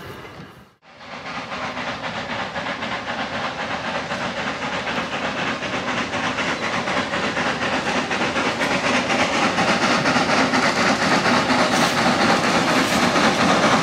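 Narrow-gauge steam locomotives working a freight train: hissing steam exhaust with quick, even beats, growing steadily louder as the train approaches. A short drop-out comes about a second in.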